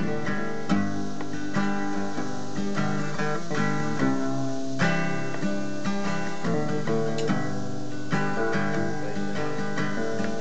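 Two acoustic guitars strumming chords together in an instrumental passage, with no singing, the strums falling in a steady rhythm a little faster than once a second.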